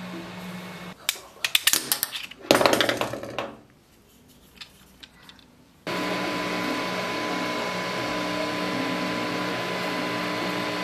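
A quick run of clicks and a short whoosh, then a near-quiet gap. About six seconds in, an FDM 3D printer comes in abruptly: a steady cooling-fan whir with the stepper motors' tones starting and stopping in short repeated phrases as the print head moves.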